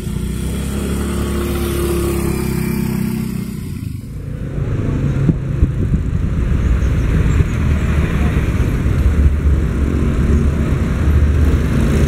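Motorcycle engines running in road traffic. A steady drone with a faint held tone runs for about four seconds, then breaks off suddenly. Busier engine noise follows, with motorcycles passing.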